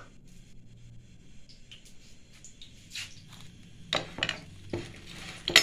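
Dishes being handled over a low hum: a few sharp clicks and knocks, the loudest near the end.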